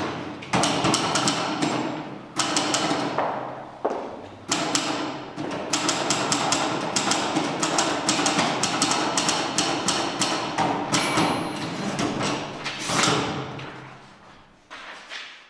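Manual typewriter clattering as its keys are struck in quick irregular runs over a steady hum. It breaks off twice briefly and fades away near the end.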